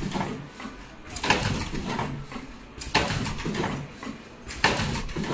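Richpeace automatic surgical mask machine running, a sudden sharp mechanical stroke that fades over about half a second repeating about every 1.7 seconds, three times, over steady factory noise.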